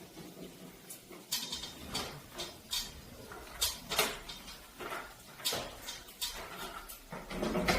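Irregular light clicks and clatters of small hard objects being handled, about ten in all.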